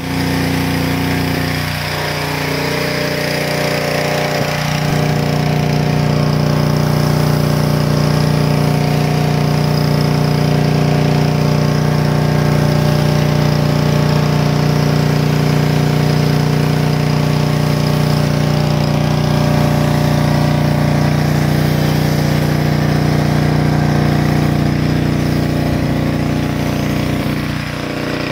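Pressure washer running steadily under load, a loud even hum, while a foam cannon on its wand sprays soap foam.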